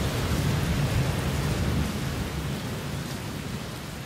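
Rain falling steadily under a low rumble of thunder, gradually fading out.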